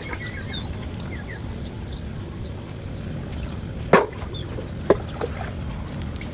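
Backyard farmyard ambience: chickens clucking with faint chirps of small birds over a steady low background noise, and two short sharp sounds about four and five seconds in.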